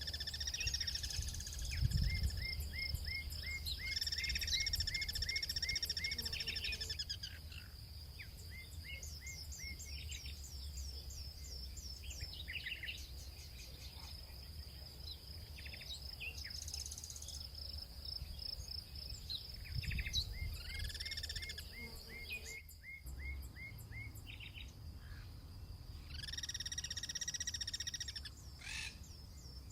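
Guira cuckoos calling back and forth in repeated series of short, quick notes and longer, fuller calls, in several bouts with pauses between. A steady, high-pitched insect drone runs underneath.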